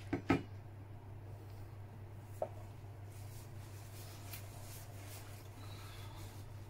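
Stainless steel mug set down on a table with two quick knocks at the start, then a fainter click a couple of seconds later, over a steady low hum.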